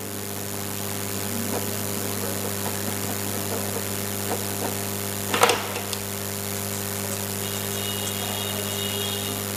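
A steady low hum with several overtones, unchanging throughout, with one brief short noise about five and a half seconds in.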